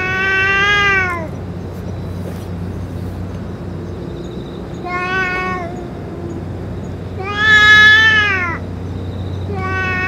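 Cat giving long, drawn-out yowls, four of them, each rising a little and then falling away at the end; the third, about seven seconds in, is the loudest. They are the warning calls of a cat facing another cat at close quarters.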